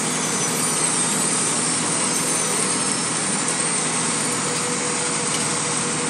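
Heavy diesel machinery running steadily: an asphalt paver being fed by a tipping dump truck. It makes a loud, even din with a faint steady hum.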